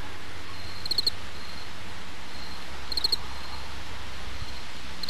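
Insect chirping outdoors: a short quick group of about four high chirps roughly every two seconds, over the steady hiss and low hum of a trail camera's recording.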